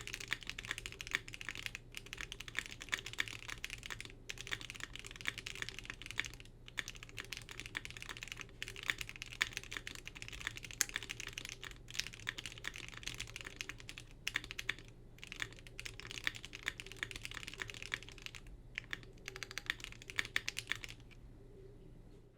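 Fast, continuous typing on a QK75 mechanical keyboard with lubed Gateron Box Ink linear switches, GMK keycaps and a polypropylene plate. The keystrokes come as a dense clatter broken by a few short pauses, and stop shortly before the end.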